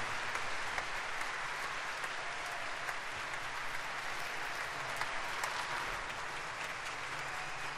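Audience applauding, a steady dense clapping that runs on without a break.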